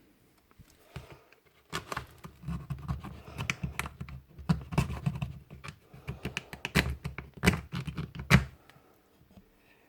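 A rapid, irregular run of small hard clicks and taps from parts of a Paslode IM350+ nail gun being handled and fitted, with a couple of louder knocks near the end.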